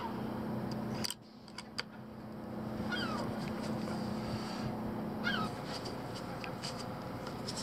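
Gulls calling overhead: a few short calls that fall in pitch, about three in all, over a steady low hum that stops about two-thirds of the way through. A few sharp clicks about a second in.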